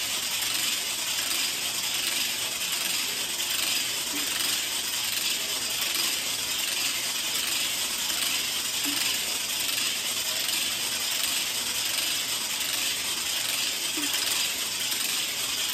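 Segmented weighted exercise hula hoop spinning around the waist: the track and the weighted ball on its cord whirring round with a steady, continuous rattle.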